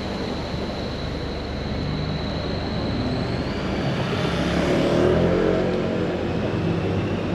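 Motor scooter riding past close by, its engine growing louder to a peak about five seconds in and then fading, over steady street traffic.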